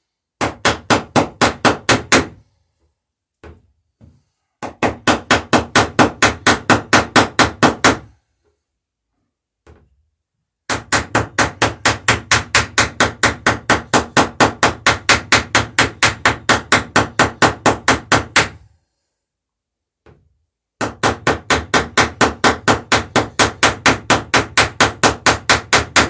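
Hammer peening rivets that fasten a wooden dory's planking: rapid even blows, about five a second, in four runs of a few seconds each with short pauses between.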